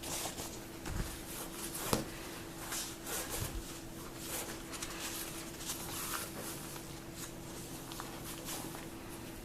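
Cleaning cloth wiping an iPad's glass screen: repeated soft swishes of rubbing, with a couple of light knocks in the first two seconds.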